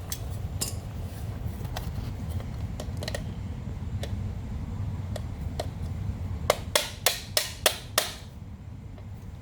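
Light clicks and taps of small metal and plastic parts being handled while a car radiator cooling fan motor is put back together, with a quick run of sharp clicks about two-thirds of the way in, over a low steady rumble.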